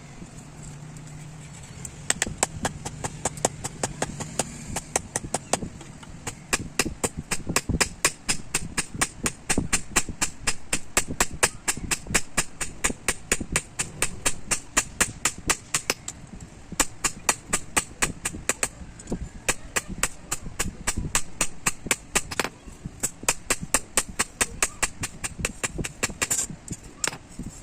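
Hammer striking steel on an anvil: fast, evenly spaced strikes at several per second as a blade is forged from leaf-spring steel, starting about two seconds in with only brief pauses.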